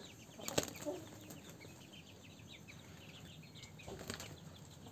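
One-month-old kampung × Bangkok cross chickens peeping faintly, many quick high chirps in a row, with two short bursts of noise, about half a second in and about four seconds in.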